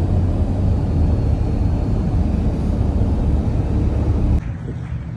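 Loud, steady low rumble that cuts off abruptly about four seconds in, leaving a quieter steady hum.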